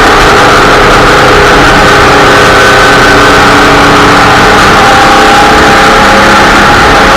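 Off-road race vehicle's engine running steadily under way, very loud on the in-car microphone, with a constant rush of noise over it.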